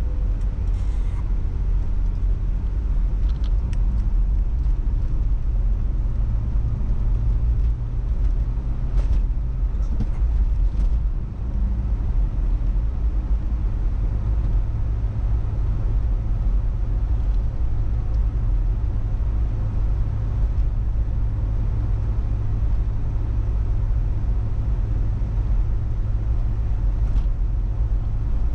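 Car driving along the road: steady low engine and road rumble, its tone shifting slightly about halfway through.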